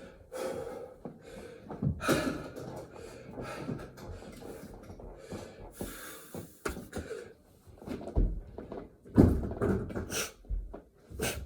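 A man breathing hard and blowing out sharp breaths while doing burpees, with a few dull thuds of his body and hands on the floor about two thirds of the way through.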